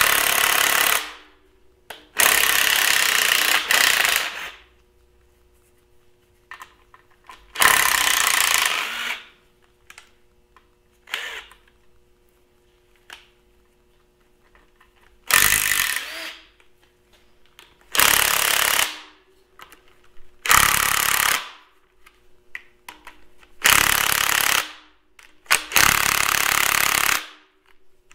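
Cordless impact wrench hammering bolts loose on a Farmall Super M engine block. It runs in about eight bursts of one to two seconds each, with short pauses between them.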